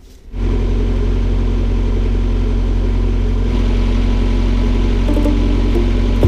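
Narrowboat diesel engine running steadily with a low, even hum. It comes in abruptly about a third of a second in.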